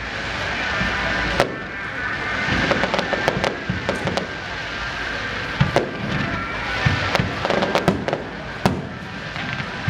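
Aerial fireworks bursting, a string of sharp bangs about once a second over a constant rumble and crackle, with music playing underneath.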